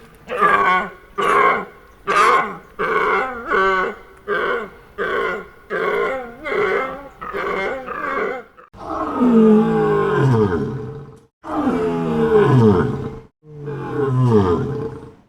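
A large animal calling: a run of short, pitched calls at about two a second, followed by three long calls of about two seconds each that fall in pitch.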